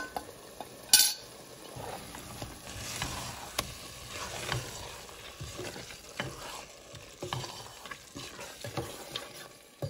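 Chicken pieces frying over high heat in a pressure cooker pot, sizzling while they are stirred and turned with a wooden spoon, with scattered scrapes and knocks against the pot. A sharp clack about a second in.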